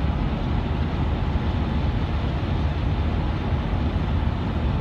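Steady road and engine noise of a car driving along a highway, heard from inside the cabin as an even low rumble.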